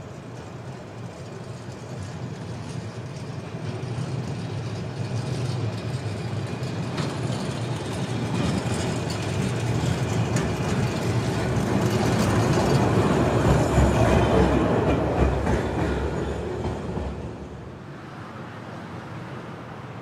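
Class 1500 "Ventotto" tram approaching and passing close by, its running noise on the rails building to a peak and fading away, with clicks from the wheels over the track.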